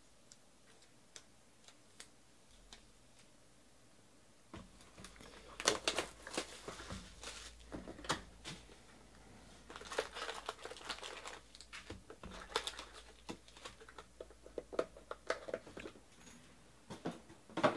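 Plastic wrapping crinkling and tearing in irregular bursts as a sealed box of trading-card packs is unwrapped and opened. The first few seconds hold only faint ticks.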